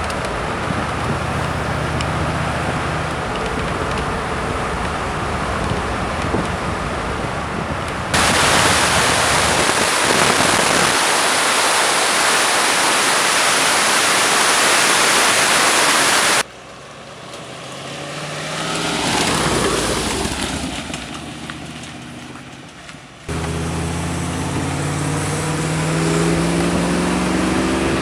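Rover 3.9-litre V8 of an MGB running under way, heard from the open cockpit, its note rising as the car accelerates near the end. For about eight seconds in the middle, heavy wind noise on an outside-mounted microphone drowns it. Then, for several seconds, the engine sound swells and fades as the car goes past.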